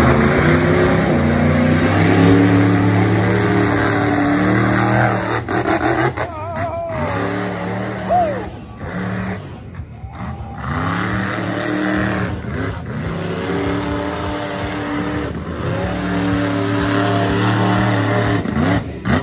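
Monster truck engine revving hard in repeated surges, dropping off throttle for moments between them.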